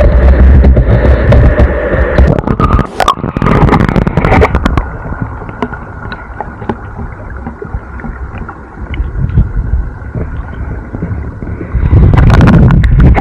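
Splashing and sloshing water, then the dull, muffled rumble and gurgle of a microphone held under water, with all the higher sound gone. Near the end loud splashing returns as it comes back up.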